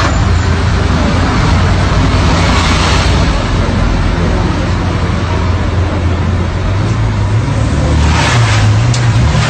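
Steady city street traffic with a low engine rumble, the rumble and road noise growing louder about eight seconds in.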